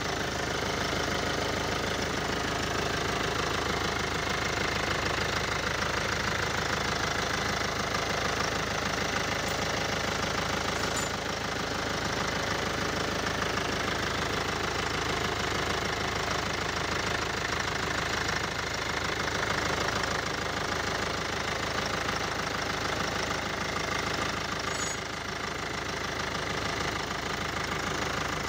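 Kia 2.0 CRDi four-cylinder common-rail diesel engine idling steadily, freshly installed as a replacement engine.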